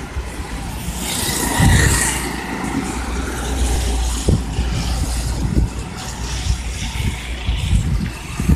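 Wind rumbling on the phone's microphone, a steady low rumble with a few gusty thumps, over street ambience.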